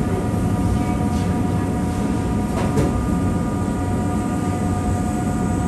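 Steady roar of an electric fan blowing air onto a long charcoal satay grill, with a constant motor whine over the rush of air. A faint clink comes about two and a half seconds in.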